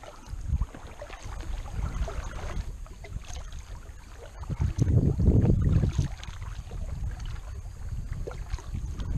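Kayak paddle strokes dipping into calm water, with a low wind rumble on the microphone that swells about five seconds in.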